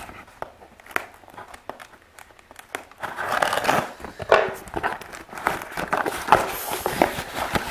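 A box and its packaging being opened by hand. Scattered light taps and clicks come first. About three seconds in there is louder, continuous crinkling and rustling of the packing material.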